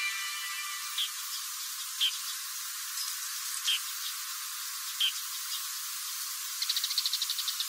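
Outdoor ambience of small creatures: short, high chirps every second or so, then a fast chirring trill near the end. A music cue fades out in the first second.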